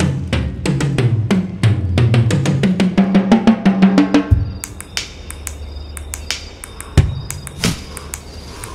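Drum kit playing a fast, busy pattern with low drum notes stepping upward for about four seconds. It lands on a heavy low hit, then sparser strikes follow over a steady low hum.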